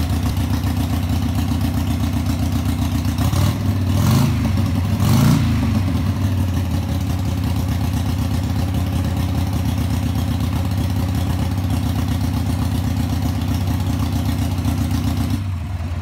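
Harley-Davidson Sportster V-twin engine idling just after a cold start on the choke, blipped twice with the throttle about four and five seconds in, then cut off right at the end.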